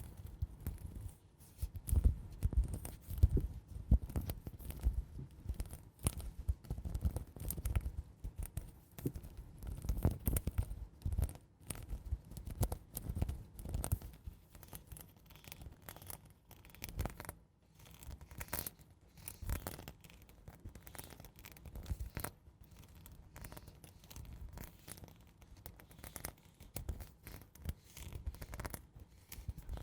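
ASMR scratching: slow, soft scratching and scraping strokes close to the microphone, one after another at an irregular pace.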